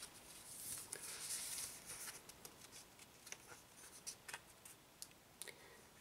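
Pages of a paper CD booklet being turned by hand: faint rustling, strongest over the first couple of seconds, with a few small paper clicks and taps scattered through.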